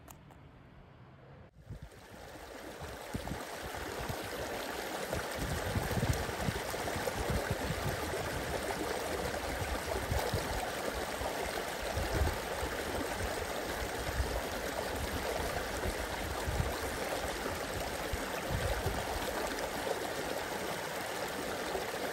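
Steady rushing of running water that fades in over the first few seconds after a cut, then holds an even level, with low irregular rumbles beneath it.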